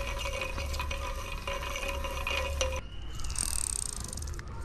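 Pioneer Sanguine 900 baitcasting reel's mechanism running: a steady whine with light clicks, which changes about three seconds in to a higher, finer rapid ticking buzz that stops shortly before the end.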